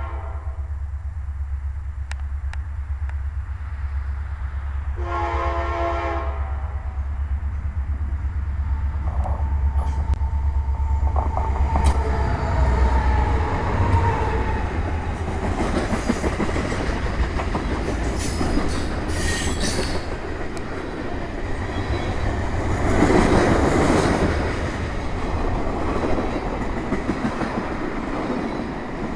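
Diesel-hauled freight train approaching and passing close by. The locomotive horn sounds briefly at first, then again about five seconds in for a second and a half. The locomotives then roar past and the tank cars' wheels clatter over the rail joints, over a steady low rumble of wind on the microphone.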